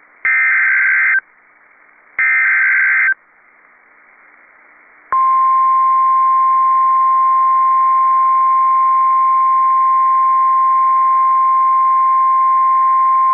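NOAA Weather Radio emergency alert signal: two short bursts of warbling SAME data, each about a second long and two seconds apart, closing out the digital alert header. About five seconds in, the steady 1050 Hz warning alarm tone begins and holds, signalling that an alert message follows.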